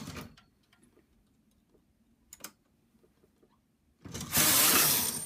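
Brother knitting machine carriage pushed across the needle bed to knit a row: a dry sliding rush lasting just over a second near the end, after a single faint click about halfway through.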